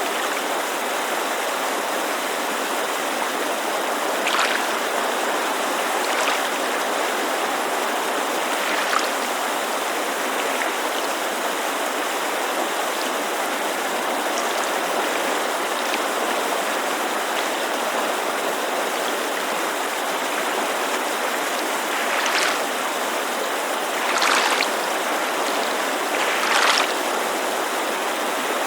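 Steady rush of a mountain creek, with a handful of brief splashes of lake water lapping against the shore.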